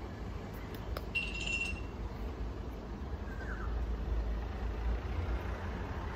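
Steady low background rumble, with a click about a second in followed by a short, high, clear ringing tone.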